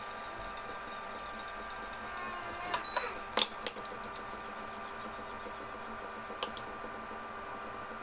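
V-Guard VIRC 01 infrared cooktop running with its cooling fan, a steady hum with a whine of several fixed tones, while it heats a steel tumbler of water. A few sharp clicks come about three seconds in, and two more near six and a half seconds.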